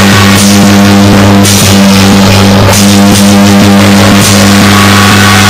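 Traditional Chinese instrumental ensemble music, loud: held wind tones over rapid drum and cymbal strokes.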